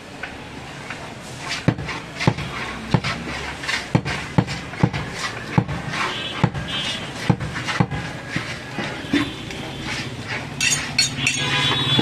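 Butcher's heavy knife chopping mutton on a wooden log chopping block: a run of about a dozen sharp chops, roughly one to two a second.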